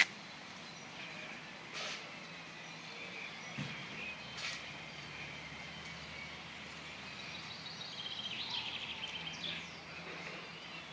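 Outdoor background noise with faint bird chirps, a sharp click right at the start and a couple of softer knocks a few seconds in.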